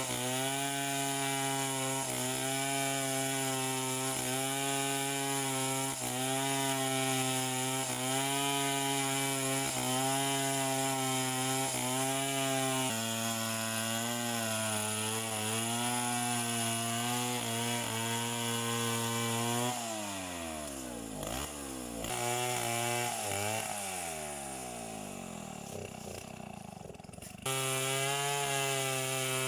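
Two-stroke chainsaw engine running at high revs, its pitch sagging and recovering in a regular rhythm about every two seconds as it works. About two-thirds of the way in the engine note drops and wavers more quietly, then the full high-revving sound returns abruptly near the end.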